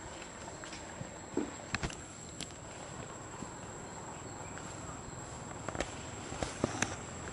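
Steady high-pitched insect drone of the forest, with a few scattered small clicks and rustles.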